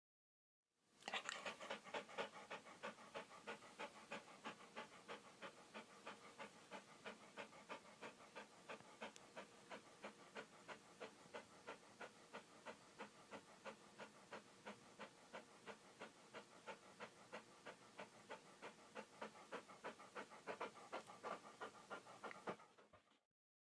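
Dog panting in quick, even breaths, about four a second, starting after a brief silence and fading out near the end.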